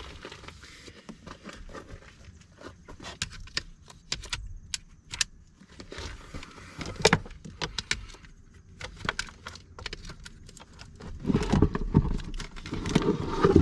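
Scattered clicks, knocks and clinks of plastic and metal as a heavy car battery is worked loose and lifted out of its tray, with a louder stretch of thumps and scraping near the end.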